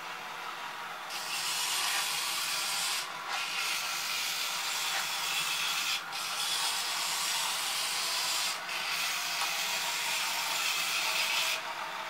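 Remote-control model tank's small electric motors and gearbox running with a steady grinding whir as the turret turns and the tank drives forward on its tracks, broken by three short pauses.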